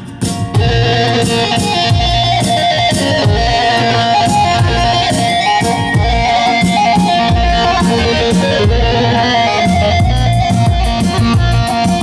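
Loud amplified dance music with a strong steady drum beat under a held melody line. It dips briefly right at the start.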